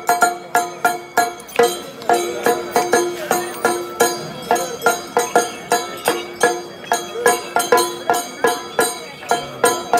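Background music with a steady, quick beat of about three strikes a second over held notes.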